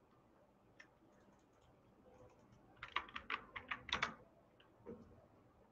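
Typing on a computer keyboard: a few faint keystrokes, then a quick run of about ten keystrokes about three seconds in.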